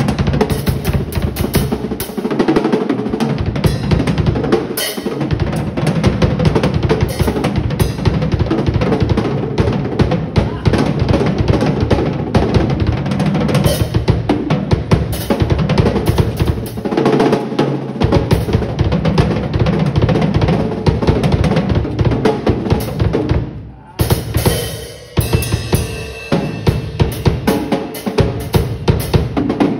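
Acoustic drum kit played fast, with dense runs of triplet strokes across the snare and toms over the bass drum. About three quarters of the way through the playing drops away briefly, then resumes with more evenly spaced hits.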